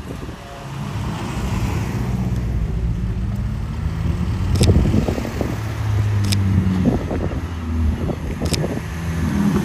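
Cars driving slowly past one after another at low revs, each engine note swelling and fading as it goes by. There are three sharp clicks over the top.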